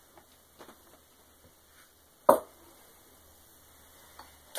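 Small tools handled on a wooden desk during soldering work: a few light clicks, then one sharp knock a little over two seconds in, and a couple more small clicks near the end.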